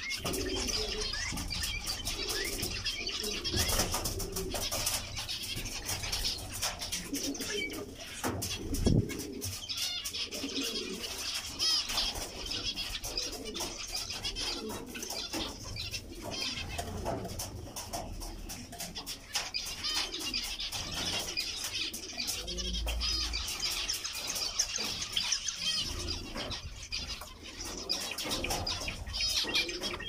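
A flock of zebra finches calling constantly while they feed, a busy chatter of many short chirps overlapping one another.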